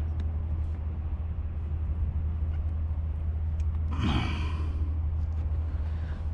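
A person sighing: one short breathy exhale, falling in pitch, about four seconds in, over a steady low rumble.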